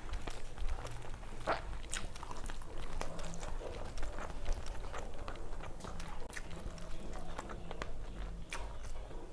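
A person chewing and biting food close to the microphone, with many short crisp crunches and mouth clicks.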